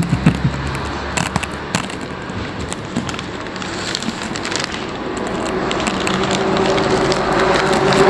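Paper wrapping around a burek crinkling and crackling as it is handled and peeled back, in a run of sharp crackles over the first two seconds and again about four seconds in. A steady hum and noise grow louder over the last few seconds.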